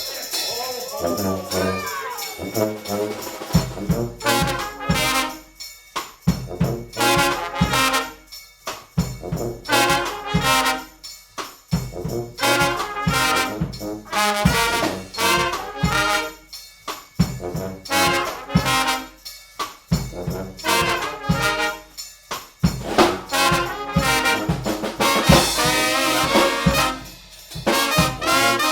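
Brass band playing a tune, with trumpets and trombones over a drum beat that comes in about three and a half seconds in.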